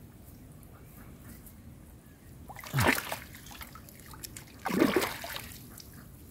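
Hands splashing and sloshing in shallow muddy pond water as a plant is dug out by its roots: two splashes about two seconds apart.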